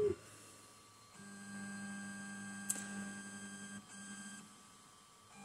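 Wizmaker P1 3D printer's stepper motors humming with a steady pitched tone as the print head and bed travel during 16-point auto bed leveling. The first move lasts nearly three seconds and has a single click partway through; a short second move follows, then it goes quiet.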